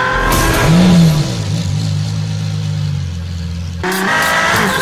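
Car engine blipped once about a second in, then settling to a steady idle, cut off abruptly near the end and followed by a different rising engine sound.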